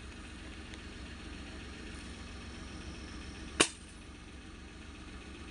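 A single shot from an air rifle, one sharp crack about three and a half seconds in, over the steady low hum of an idling vehicle engine.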